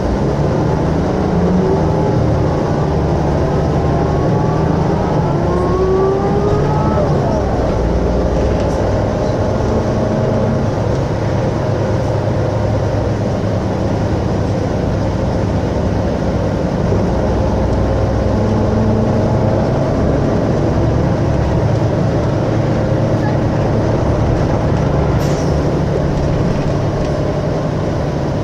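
Mercedes-Benz O405 N2Ü bus's diesel engine running, its pitch climbing over the first several seconds, then holding steady at a higher speed. A short sharp click comes near the end.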